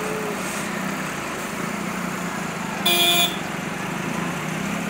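Tractor engine running steadily, with one short honk of a vehicle horn about three seconds in.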